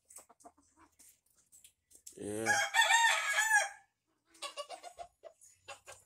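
A game fowl rooster crows once, about two seconds in, a call lasting under two seconds, followed near the end by a run of short clucks.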